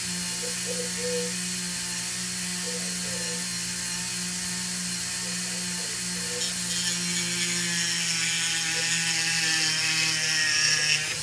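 Dremel rotary tool running at high speed with a 199 cutter bit, a steady whine throughout. About six seconds in, a hissing grind joins and grows louder as the bit cuts a slot into the end of an ebonite pipe stem.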